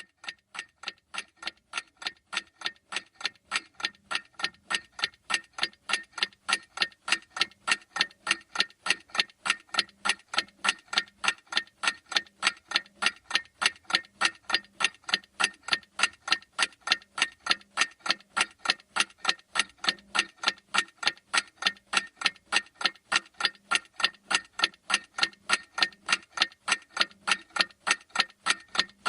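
Clock ticking sound effect for a countdown timer: fast, even ticks, about three a second.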